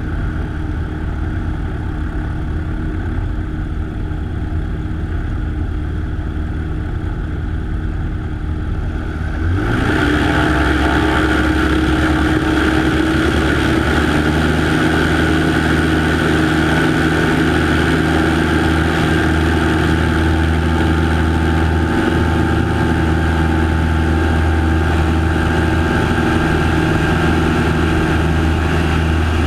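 Light aircraft's piston engine and propeller running steadily, picked up by a wing-tip camera. About ten seconds in, the sound jumps louder and fuller, with more hiss, as the engine note rises, then holds steady.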